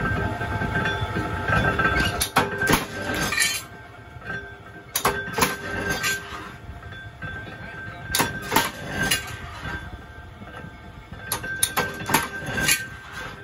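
Flywheel-driven mechanical punch press running with a steady whine. Its ram shears steel angle bar in a cutting die, giving sharp metallic clanks in groups of two to four every few seconds.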